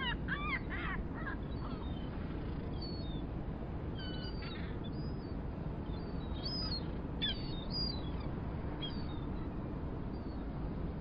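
Seagulls calling over a steady low harbor rumble. A quick run of gliding cries comes right at the start, then single calls and short runs follow every second or two.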